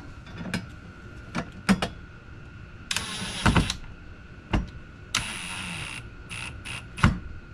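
Cordless drill-driver driving screws in two short runs, about three seconds in and again about five seconds in, with scattered clicks and knocks of parts being handled.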